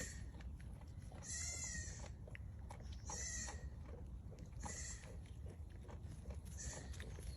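Goat bleating four times in short, high-pitched calls; the second call, about a second in, is the longest and wavers in pitch.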